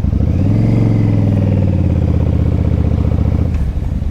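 Yamaha V-Star 1100 Classic's air-cooled V-twin engine pulling under throttle: the pitch rises briefly, holds steady, then drops off near the end as the throttle eases.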